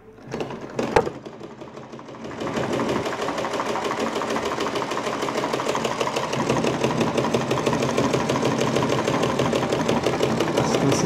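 Butterfly treadle sewing machine stitching: it starts unevenly with a sharp click about a second in, then from about two seconds in settles into a steady run of rapid, even ticking from the needle mechanism.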